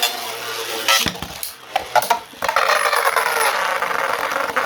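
3D-printed Beyblade spinning tops colliding in a stadium: a few sharp clacks of the tops hitting each other in the first two seconds. Then a steady whirring scrape as a top spins on the stadium floor.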